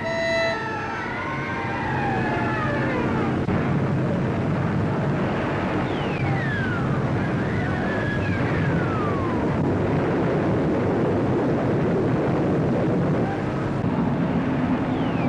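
War sound effects: a siren-like wail gliding down in pitch, then three steeply falling whistles like bombs or shells coming down, over a dense low rumble.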